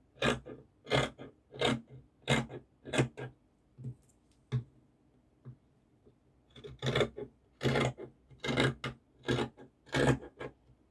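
Fabric scissors cutting through folded fabric in a run of short crunching snips, about one or two a second, pausing for about two seconds midway before the snipping resumes.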